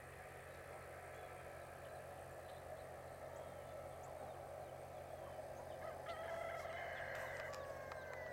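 Chickens calling, with a hen clucking to her well-grown chicks. A louder held call stands out for about a second and a half, starting about six seconds in.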